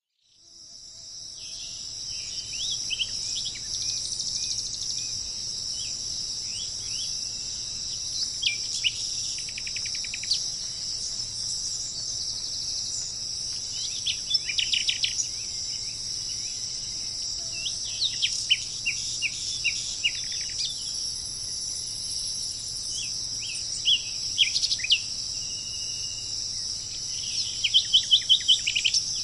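A steady high-pitched chorus of insects, with songbirds chirping over it in short calls and quick trills. The trills come in bursts several times, the loudest cluster near the end. The sound fades in over the first second.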